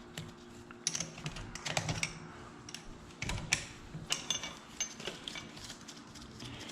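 Irregular light clicks and metallic taps of hand tools working on a YZ85 motorcycle engine's cylinder fasteners during disassembly, in small clusters with short pauses between.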